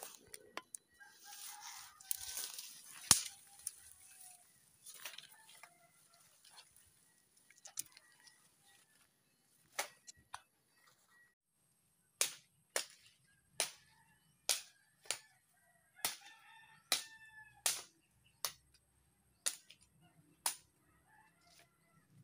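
Rooster crowing about two seconds in, with more crowing and clucking further off. In the second half, a dozen sharp chopping strokes, roughly one every 0.7 seconds, as a blade cuts into woody stems.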